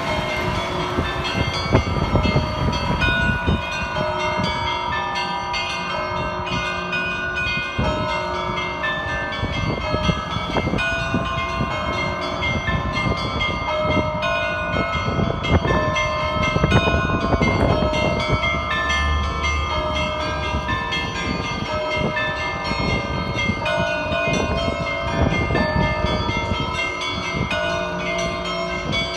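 Russian Orthodox church bells ringing: many bells of different pitches struck in a continuous, overlapping pattern, each tone ringing on, with a low rumble underneath.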